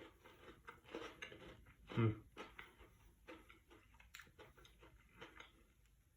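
Close-up chewing of a crispy chocolate chip cookie: quiet, irregular crunching and clicking, with one louder, short low sound about two seconds in.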